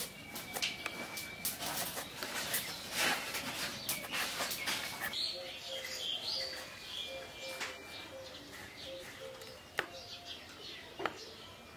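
Knife scraping and shaving the ridged skin off a ridge gourd in short quick strokes, with birds chirping around. In the middle a bird repeats a short note about twice a second, and two sharp clicks come near the end.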